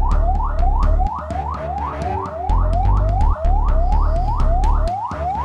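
Ambulance siren in a fast yelp, each note sweeping up and cutting back, about four a second, with low droning notes underneath.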